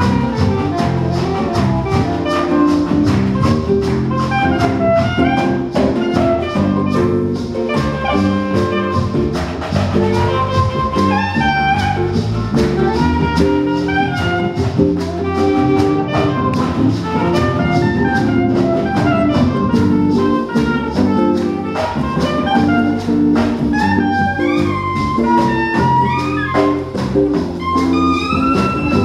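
Live jazz-tinged band playing an instrumental section: a soprano saxophone carries a melodic line of moving, sometimes bending notes over acoustic guitar chords, electric bass and percussion.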